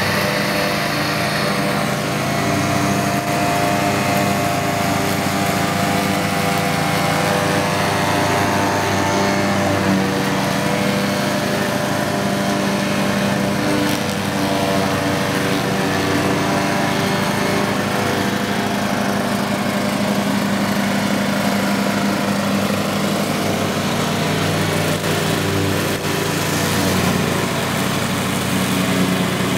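Ride-on lawn mower with a front-mounted cutting deck, its engine running steadily under load while mowing grass.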